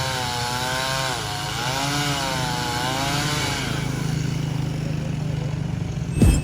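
Chainsaw running hard while cutting into a tree, its engine pitch sagging and recovering as the chain bites, with a loud burst just before the end.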